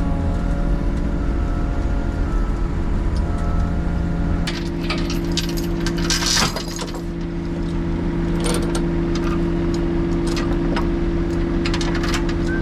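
Engine idling steadily, with scattered metallic clinks and rattles starting about four and a half seconds in and one louder clatter a little after.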